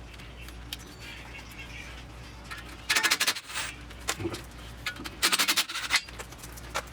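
Ratchet wrench clicking in two quick bursts, about three seconds and five seconds in, with a few scattered metallic clicks between, while loosening the ABS wheel-speed sensor's hold-down bolt.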